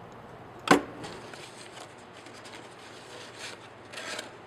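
A single sharp knock as a roll of gummed paper tape drops into the tape dispenser's hopper, followed by faint rustling and scraping of the paper tape being threaded into the feed.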